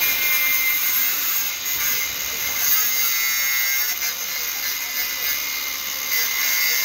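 Small angle grinder with a cutoff disc cutting through a steel rebar stub at a concrete wall: a steady, high-pitched grinding hiss over the motor's whine.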